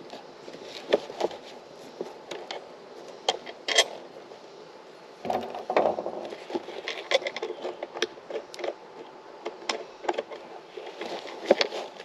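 Handling noise from working a plywood board with a metal plate into a vinyl seat-back cushion: irregular clicks and knocks, and the cover rustling and scraping, loudest about halfway through.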